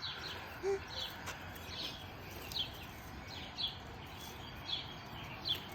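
A small bird chirping over and over, short falling notes about once a second, over a faint steady outdoor hiss.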